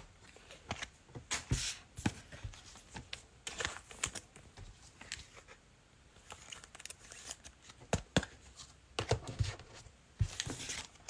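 Trading-card pack wrappers crinkling and tearing while cards are handled and flicked through, in irregular short rustles and clicks.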